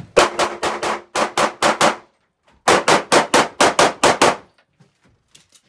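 Rapid gunfire: sharp shots in quick strings of about four a second, with a short pause about two seconds in and a longer break after about four and a half seconds, as a shooter runs a timed stage.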